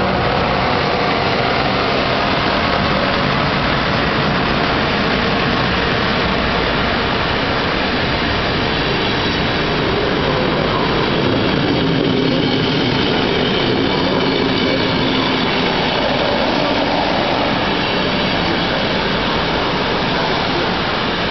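Electric-hauled passenger train running past close by, its coaches rolling along the nearest track: a loud, steady rumble of wheels on rail with a few faint humming tones.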